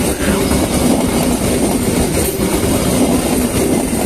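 A train passing close by, its wheels running over the rails in a loud, steady rumble.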